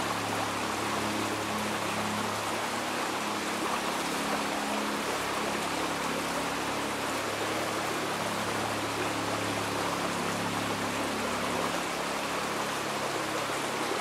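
Shallow rocky stream running and babbling steadily.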